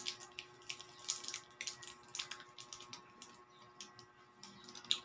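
Wrapper of a small chocolate crinkling and crackling between the fingers as it is unwrapped, in irregular short rustles and clicks.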